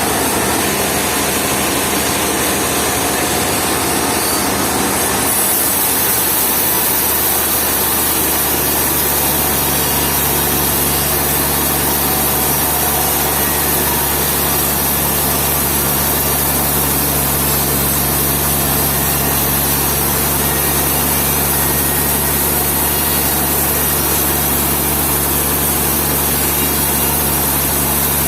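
Sawmill machinery running steadily: a saw cutting through timber over a continuous engine hum. The high hiss of the cut grows louder about five seconds in.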